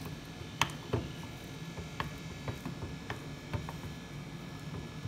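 A wooden utensil stirring and mashing thick choux pastry dough in a small metal saucepan, the cooking stage of the flour paste, knocking against the pan's side about seven times at irregular intervals.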